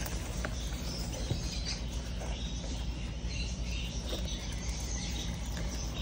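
A box of lovebird chicks making faint, high, squeaky peeps, over a steady low hum.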